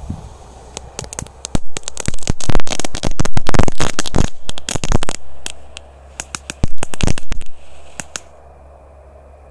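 Small ground spark-fountain firework crackling: a dense run of sharp pops from about a second and a half in to about five seconds, then a second, shorter run that stops about eight seconds in. It dies out without the bang that was expected.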